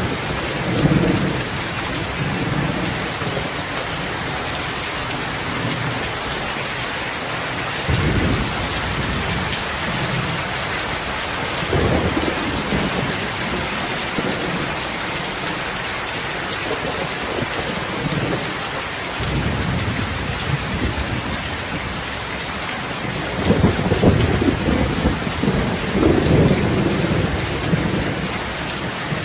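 Steady heavy rain hiss with several low rolls of thunder, the longest and loudest coming a few seconds before the end.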